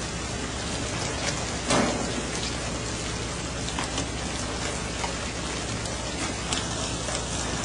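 Steady rush of sea water churning along a moving fishing boat's hull over a constant low engine hum, broken by a few sharp slaps and splashes, the loudest nearly two seconds in.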